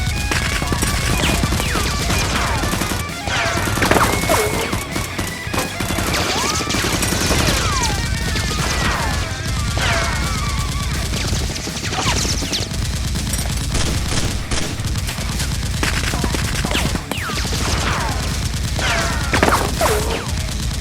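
Rapid gunfire sound effects, volleys of shots mixed with repeated falling whistling zings, over a steady low music bed.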